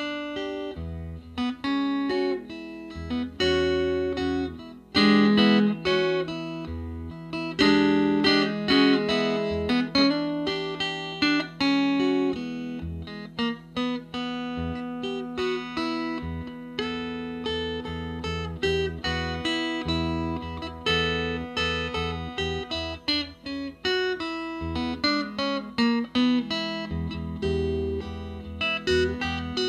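Smokestack six-string 'Crunch' box guitar with a resonator cone, fingerpicked and played with a slide, heard through a small amplifier. A continuous passage of picked notes rings over a steady low bass drone.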